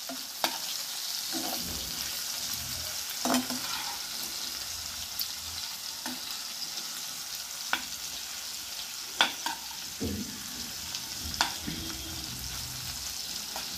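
Boneless chicken pieces sizzling in hot oil in a frying pan, with a metal spatula scraping and tapping the pan several times as the pieces are turned. The chicken is being fried until its liquid cooks off.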